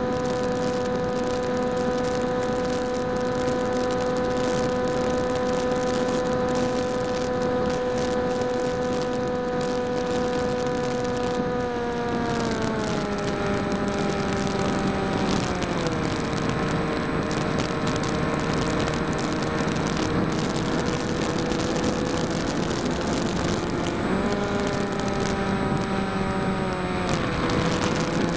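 Small RC flying wing's electric motor and propeller whining steadily over a hiss of rushing air, as picked up by the onboard camera. The pitch steps down twice as the motor slows, comes up a little later on, and drops again near the end.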